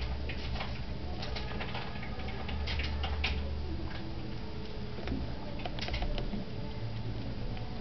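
Pet rat nibbling and grooming a fingertip through cage bars, with irregular small clicks and scratching, and rats scrabbling in hay bedding.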